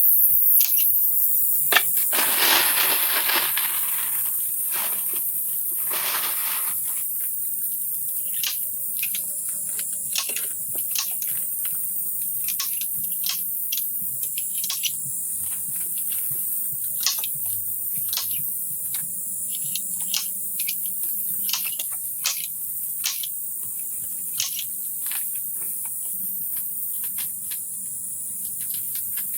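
A steady, high-pitched insect chorus, with frequent sharp clicks and taps throughout and two brief rustling swishes about two and six seconds in.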